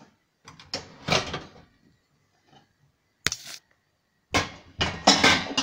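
Kitchen cupboard doors being opened and shut: a series of knocks and rattles, with one sharp click a little past three seconds in.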